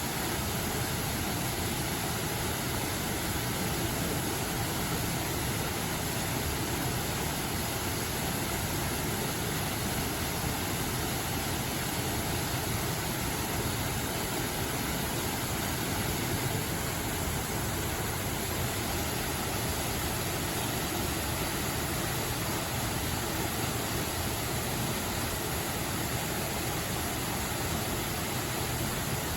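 Steady rush of a mountain stream's flowing water, an even unbroken hiss with no change in level.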